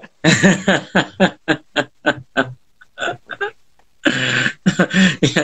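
Men laughing: a run of short laughs that spaces out and fades, then a louder burst of laughter near the end.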